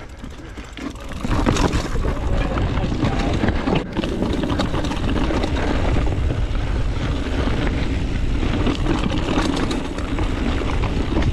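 Mountain bike descending a dry dirt-and-rock single track at speed: wind rushing over the camera's microphone with the low rumble of the tyres on the trail and scattered clicks and rattles from the bike. Quieter for the first second, then steady.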